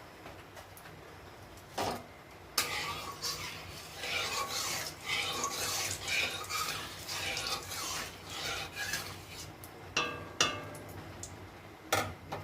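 Kitchen utensils scraping and rubbing against cookware for several seconds, with a few sharp knocks of utensils on cookware before and after.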